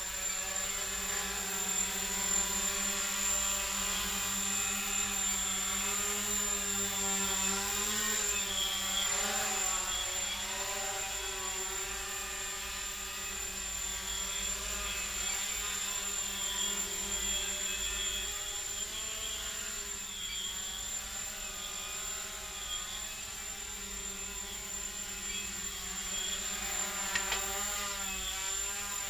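Micro quadcopter's brushless motors and carbon fiber props buzzing in flight, the pitch wavering up and down with constant throttle corrections. A brief knock near the end.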